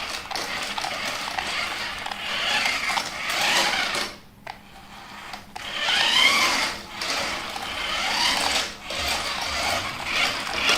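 Small electric drive motor and gearbox of a toy remote-control monster truck whining, speeding up and slowing down in several runs with brief pauses between them.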